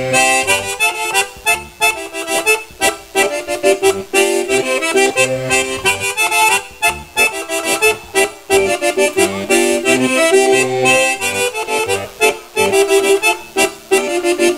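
Accordion playing a lively dance tune for a gaúcho chula, a solo dance done over a wooden stick on the floor, with sharp taps running through the music.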